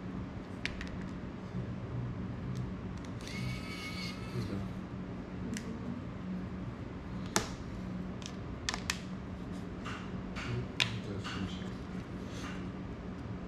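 Light clicks and taps of small drone parts and hand tools being handled on a tabletop during a video-transmitter swap, with a brief scraping sound about three seconds in, over a steady low hum.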